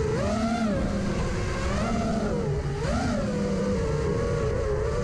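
FPV freestyle quadcopter's motors and propellers whining steadily, the pitch rising and falling several times as the throttle is worked.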